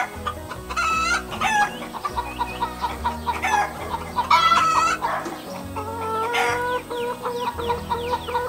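Chickens clucking with a rooster crowing, with a run of quick repeated clucks in the second half.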